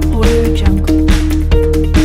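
Background music with a steady beat of about two hits a second over a heavy bass line and held synth notes.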